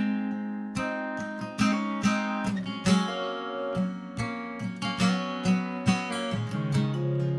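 Background music on acoustic guitar: a run of plucked and strummed notes, each ringing on after it is struck.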